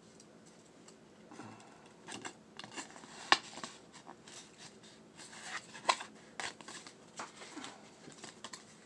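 Paper scratch-off lottery tickets being handled: scattered rustling and crinkling, with two sharp paper snaps, about three and six seconds in, standing out as the loudest.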